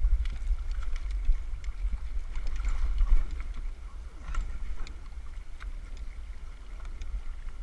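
Small paddled boat moving on river water: scattered splashes and knocks of the paddle and hull over the wash of the water, with a heavy low wind rumble on the microphone.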